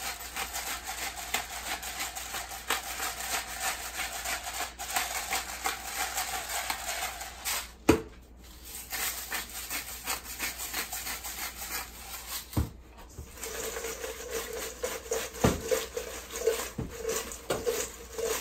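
Freshly fried fries being salted, peppered and tossed in a stainless steel bowl. A steady fine crackle fills the first half, with a sharp click about eight seconds in. Near the end the fries scrape and rattle against the ringing metal bowl.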